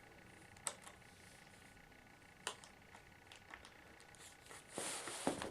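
Small flathead screwdriver prying the rubber screw covers off a laptop's screen bezel: a few sharp, scattered clicks and taps, then a short scraping rustle near the end.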